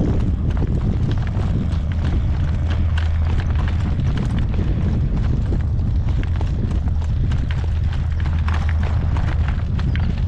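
Horse's hooves clip-clopping at a trot, over heavy wind buffeting the microphone as a loud, steady low rumble.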